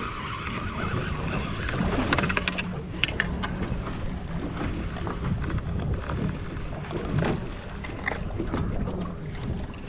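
Open-water ambience aboard a center-console fishing boat: wind on the microphone and water against the hull over a low steady hum, with scattered light clicks and knocks.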